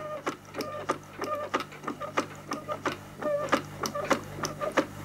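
Hand-turned plastic snap-together beam engine water pump model clicking rapidly and evenly, about four to five clicks a second, as its beam, crank and pump cylinder cycle while pumping water.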